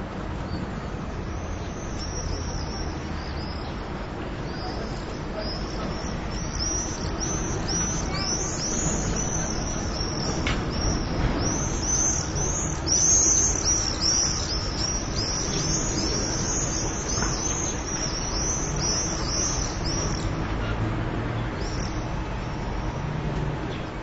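Swallows calling in rapid strings of high chirps, thickest from about eight to twenty seconds in, over a steady low rumble of town traffic.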